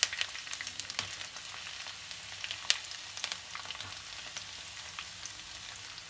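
Chopped ginger and garlic sizzling in hot oil, a steady hiss with frequent crackles and a few sharp pops.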